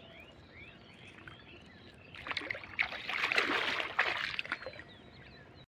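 Water splashing and sloshing for about two and a half seconds, starting about two seconds in, after a stretch of faint bird chirps.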